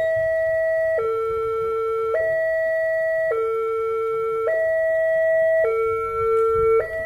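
Railway level-crossing alarm sounding, an electronic two-tone signal switching between a higher and a lower held tone about once a second. It warns that a train is approaching and the crossing is closed.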